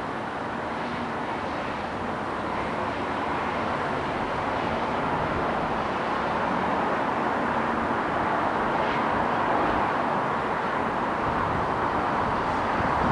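Steady outdoor rushing noise with no distinct events, growing slowly louder.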